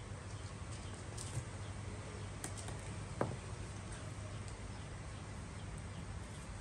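Quiet, steady low background hum with scattered faint clicks and one brief sharper tick about three seconds in.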